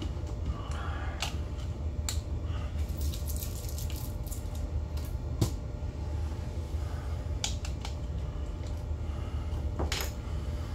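Steady low rumble of a motor yacht underway, with scattered sharp ticks and dripping water sounds and one louder knock about five seconds in.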